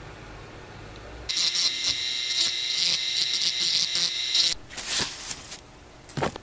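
Small handheld rotary tool (mini drill) running with a high-pitched whine as its fine bit works the PLA plastic of a 3D-pen figure, for about three seconds starting a little over a second in. Two shorter bursts of sound follow near the end.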